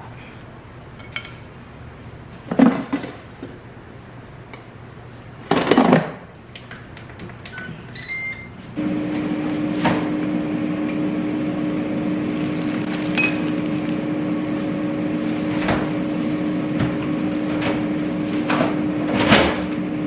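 A digital kitchen appliance, plausibly the countertop air fryer, beeps as it is set, then its fan runs with a steady hum. Two handling clatters come before it, and another clatter comes near the end.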